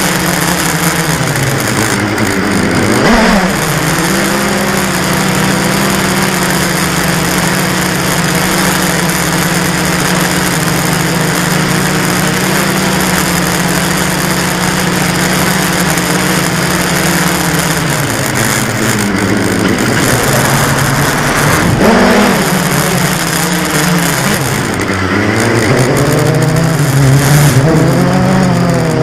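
Blade 350 QX quadcopter's four brushless motors and propellers buzzing steadily, heard through the camera mounted on the airframe, with a rushing hiss underneath. The pitch dips and swings back up about three seconds in and several times in the second half as the motors change speed to manoeuvre.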